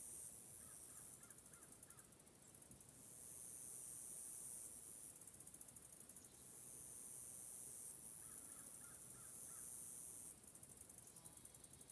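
Faint high-pitched insect chorus that switches every couple of seconds between a steady hiss-like buzz and a rapid pulsing trill. Distant crows caw in short series about a second in and again about eight seconds in.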